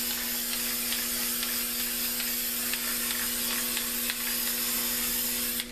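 Aerosol spray-paint can spraying onto a canvas in one long continuous hiss, which cuts off sharply just before the end. A steady low hum runs underneath.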